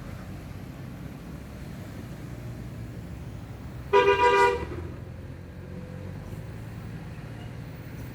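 A bus horn sounds one short blast about halfway through, over a steady low rumble of engines.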